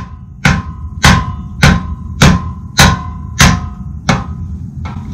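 A hammer repeatedly strikes the handle of a Siebenrock wrench fitted on a BMW Airhead's seized star exhaust nut. It lands about nine blows, one every half second or so, and each leaves a short metallic ring. The blows are meant to break the nut loose, and it does not seem to be moving.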